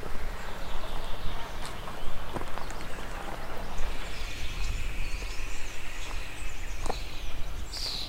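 Outdoor forest ambience: small birds chirping high up, with a long high trill through the second half, over an uneven low rumble, plus a couple of soft knocks.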